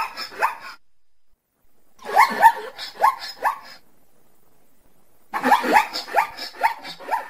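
Zebra calling in three bouts of quick, barking yelps, each bout a string of four or five short calls. The bouts come about two to three seconds apart, with the first trailing off right at the start.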